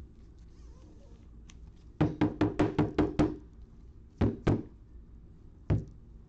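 A rigid plastic card top-loader being knocked on the tabletop: a quick run of about seven knocks, two more a second later, then a single one near the end.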